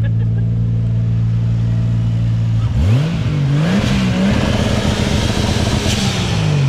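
Single-turbo Toyota 2JZ inline-six in a Lexus SC300, revved by hand from the engine bay. It idles steadily, gets one quick blip about three seconds in, then is revved up and held at higher revs for a couple of seconds before dropping back toward idle at the end.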